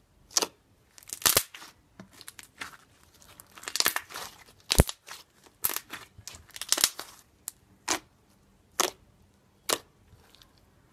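Hands squeezing and pressing a lump of white slime, making a series of sharp crackling pops, roughly one a second, with fainter crackles between.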